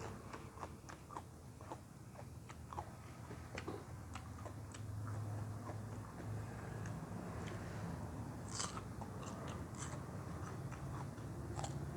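A person chewing and biting into crunchy raw vegetables close to the microphone, with many small crisp crunches.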